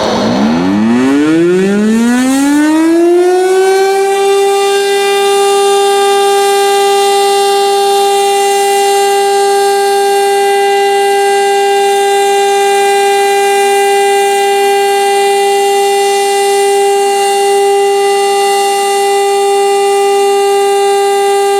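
Federal Signal STL-10 outdoor warning siren winding up, its pitch rising for the first four seconds or so, then holding one loud steady tone as a short alert signal.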